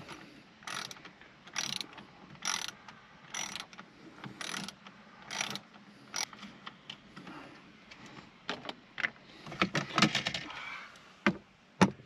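Small hand ratchet with a 7mm socket clicking as it backs out a dash bolt, in short bursts about once a second. Near the end come a denser rattle of clicks and a single sharp knock as parts are set down on the dash top.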